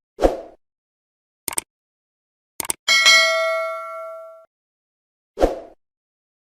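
Edited-in sound effects: a few short, separate pops and clicks, and a single bell-like ding about three seconds in that rings out for about a second and a half.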